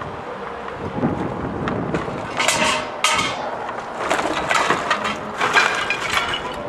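Rustling and clattering of loose objects being handled and set down on the ground. The sound comes in several short noisy bursts, about two and a half and three seconds in, and again between four and six seconds.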